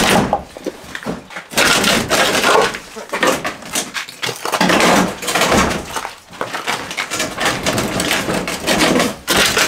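An IBC water tank being twisted round on a concrete-block plinth: its plastic pallet base scrapes and grinds over the blocks in several long, loud pushes.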